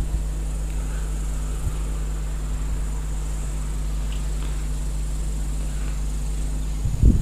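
Steady low hum with a faint high-pitched whine over it, and a brief rumbling puff on the microphone near the end.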